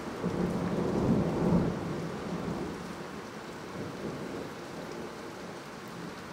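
Thunder rumbling from a strong thunderstorm, swelling over the first couple of seconds and then fading, over a steady hiss of rain.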